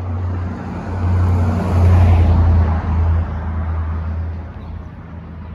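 Yamaha Banshee's 350 cc twin-cylinder two-stroke engine running, getting louder for about two seconds in the middle and then settling back.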